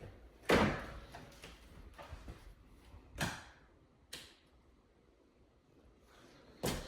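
Closet door being slid and knocked against its frame: a sharp knock about half a second in, softer knocks around three and four seconds in, and another near the end.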